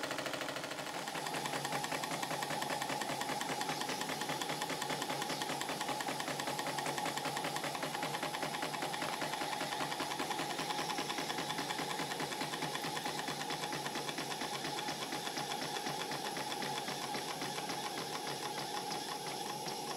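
Single-cylinder model steam engine running on steam at a steady speed, with a rapid, even mechanical beat.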